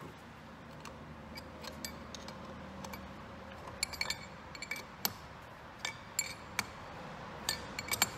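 Wrenches clinking and clicking against the metal hose fittings of a SeaStar hydraulic steering helm as the fittings are tightened. The sharp metallic clinks come in scattered clusters, mostly in the second half.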